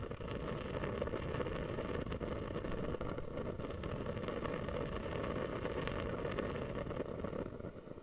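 Mist humidifier bubbling: a dense, steady run of small bubble pops, which falls away to a faint hiss shortly before the end.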